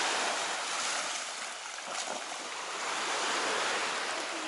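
Rushing water, a steady hiss that swells and eases, louder about a second in and again past the middle.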